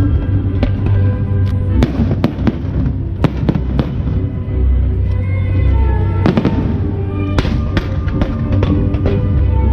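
Aerial fireworks going off in quick clusters of sharp bangs and crackles, with music playing throughout.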